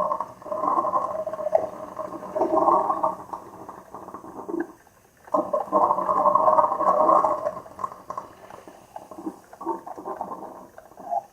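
Two coffee makers brewing at the same time, in uneven bursts with a short lull about five seconds in.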